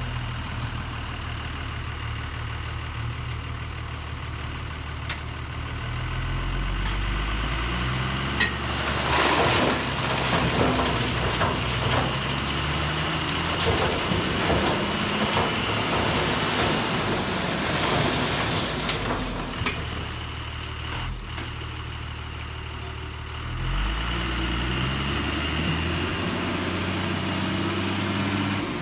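A vehicle engine running, its pitch stepping up and down, with a stretch of rough noise and clatter through the middle.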